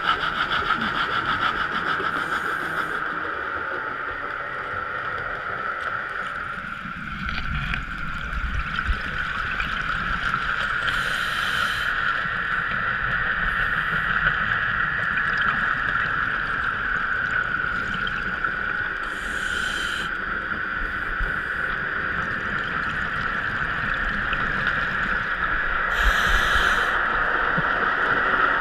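Underwater sound picked up through a GoPro's waterproof housing: a steady hum with a short hiss of bubbles about every eight seconds, a scuba diver's exhaled breath.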